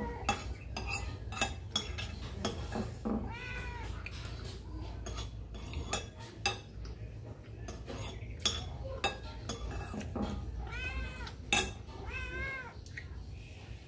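A cat meowing, once about three seconds in and twice near the end, over repeated light clinks of a metal spoon against a ceramic bowl.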